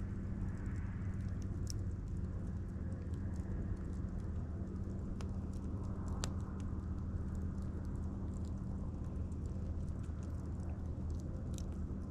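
Wood campfire burning, with scattered sharp crackles and pops over a steady low hum.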